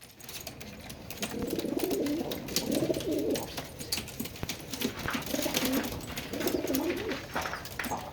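Domestic Qatifi pigeons cooing in two low, rolling bouts, with scattered sharp clicks throughout.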